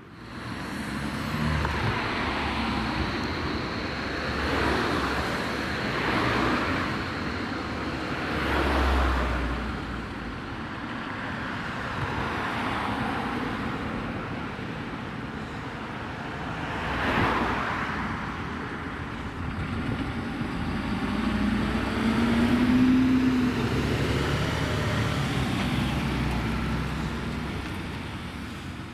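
Road traffic, with several vehicles driving past one after another, each swelling and fading.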